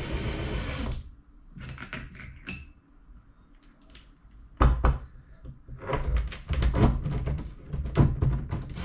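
Cordless drill running briefly on a cover bolt, then sharp metallic clinks and knocks from bolts and washers being handled, one with a short ring. A dense run of quick clicks and knocks comes in the last few seconds.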